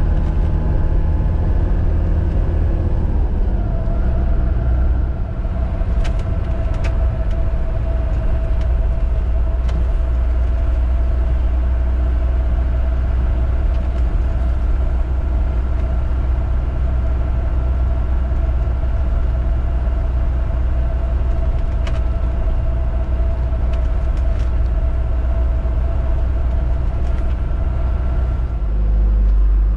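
Classic Hymer motorhome driving along a country road, heard from inside the cab: a steady low engine and road rumble with a steady humming tone over it. The engine note shifts about three seconds in and again near the end.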